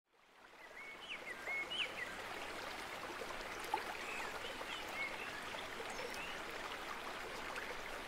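A shallow stream running steadily, fading in over the first second, with small birds giving brief chirps now and then.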